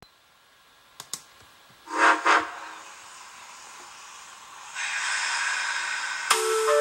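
Two clicks, then two short blasts of a steam locomotive whistle, followed by a steady hiss of escaping steam that grows louder: a recorded train sound effect. Music begins near the end.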